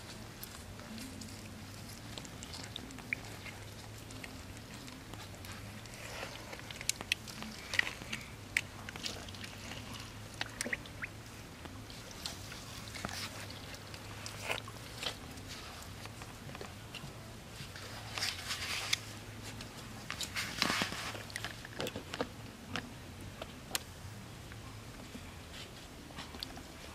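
Hands squelching and splashing in wet mud and shallow puddle water, with many small irregular clicks and wet smacks, busiest in two spells around a third of the way in and about two thirds in. A steady low hum runs underneath.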